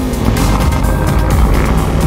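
Epic film-trailer music with drum hits, mixed over an off-road race truck's engine running hard.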